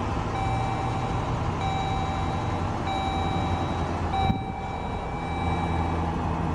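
The 2011 Jeep Grand Cherokee's 5.7-litre V8 idles steadily just after start-up. A dashboard warning chime repeats about every 1.2 seconds for the first few seconds, and there is a single click about four seconds in.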